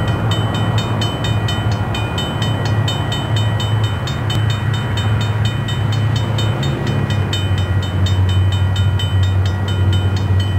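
Train running with a steady low rumble, with a fast, even ringing pattern repeated over it, like a railroad crossing signal.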